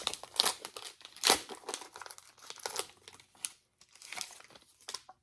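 Foil wrapper of a trading card booster pack crinkling and rustling in the hands, with irregular crackles as cards are handled. The loudest crackle comes about a second in.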